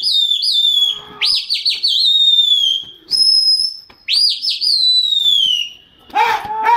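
A person whistling loudly to a flying flock of pigeons: a few quick rising swoops followed by long falling whistles, repeated several times. About six seconds in, a few short, lower-pitched calls follow one another.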